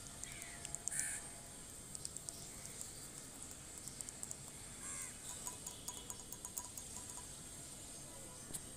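Crows cawing a few times in the distance, loudest about a second in, over a steady high-pitched insect buzz.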